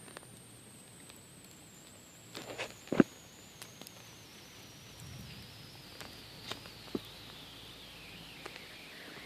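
Scattered footsteps with sharp cracks and knocks, loudest about three seconds in, over quiet outdoor background. A faint high tone glides slowly downward throughout.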